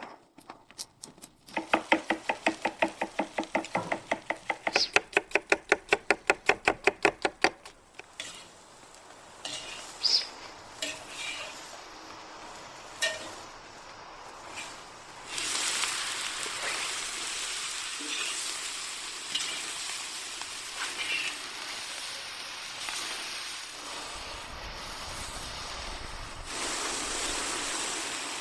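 Sliced onions and bison meat frying in a hot kazan. It starts with a quick run of metal clinks as a spatula scrapes and stirs in the pan, about six strokes a second for several seconds. From about halfway on there is a loud, steady sizzle.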